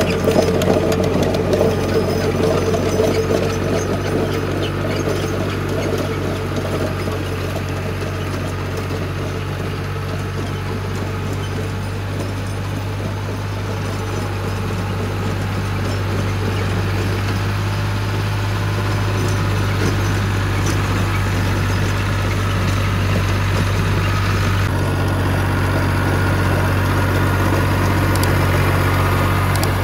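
New Holland 480 tractor's diesel engine running steadily under load while it drives a rotavator through the soil. The sound shifts slightly about 25 seconds in.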